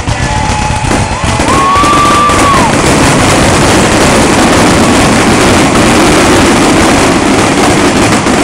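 Fireworks display: a dense, unbroken barrage of aerial shell bursts and crackling, loud throughout. About a second in, a whistling shell rises in pitch, holds and then drops away.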